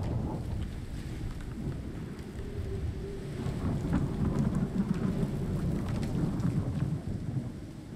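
Rolling thunder rumbling low over steady rain, swelling about halfway through and fading near the end.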